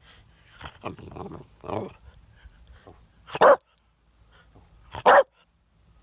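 A dog barking: a few softer grumbling vocal sounds, then two short, loud barks about a second and a half apart.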